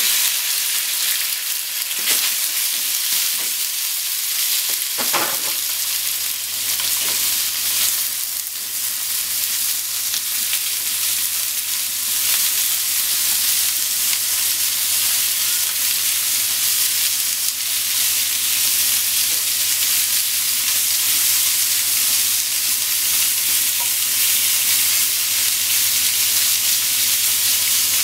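Thin slices of raw pork sizzling loudly and steadily in hot oil in a nonstick frying pan, freshly added and being stirred and spread with wooden chopsticks, with a few light clicks of the chopsticks against the pan early on.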